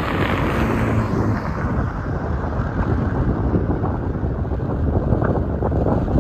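Strong wind buffeting the microphone in rough, gusting waves, with a low rumble underneath.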